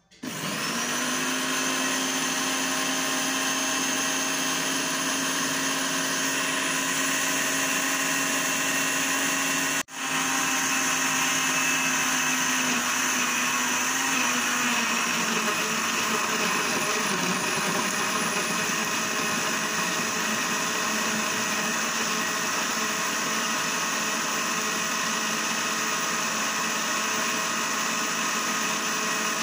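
Electric countertop blender running, described as "so noisy", as it purées chunks of watermelon, banana, pawpaw and avocado with water into juice. The motor starts right at the beginning and runs steadily, apart from a momentary cut about ten seconds in. Its steady hum turns rougher about halfway through, as the fruit breaks down.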